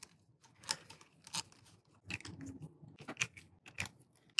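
Small locking screws being handled and fitted by gloved fingers into the back of a lathe chuck. Scattered light metal clicks, about half a dozen, with a short scrape about two seconds in.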